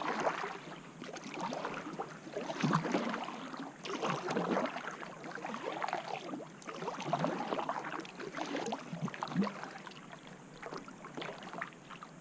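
Kayak paddle strokes splashing and dripping in lake water, a swell of water noise every second or two.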